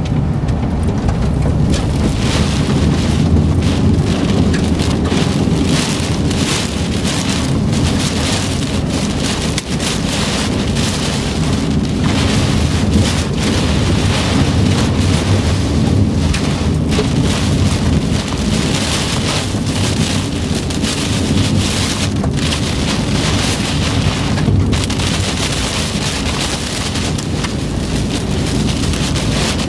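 Heavy rain pelting a vehicle's roof and windshield as a dense, steady wash with many small individual hits, over a low rumble, heard from inside the cabin.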